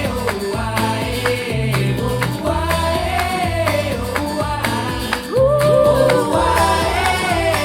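Pop song with female singing over guitar and a steady bass line, played back through Edifier R1280-series bookshelf speakers; it gets a little louder about five and a half seconds in.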